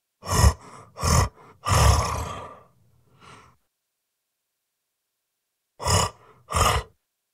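Designed cyclops monster voice: a string of deep, short grunts with one longer groan that trails off about two seconds in, a pause, then two more sharp grunts near the end.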